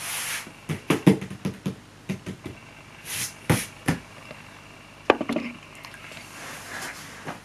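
Cardboard parcel box being opened by hand: quick knocks and taps on the cardboard, with two short tearing hisses, at the start and about three seconds in, as packing tape is ripped.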